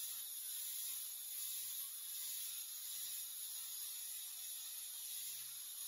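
Faint steady high-pitched hiss, unchanging throughout.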